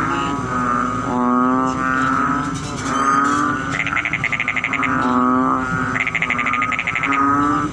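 Frogs calling: repeated droning calls, each about half a second long, overlapping one another. A fast, higher rattling trill comes in twice, about four and six seconds in.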